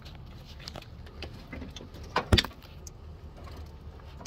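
Two sharp knocks about two seconds in, a moment apart, the second the louder, over a low steady rumble with a few lighter clicks.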